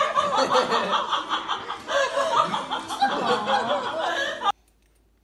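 Laughter, in quick repeated pulses, breaking off suddenly about four and a half seconds in.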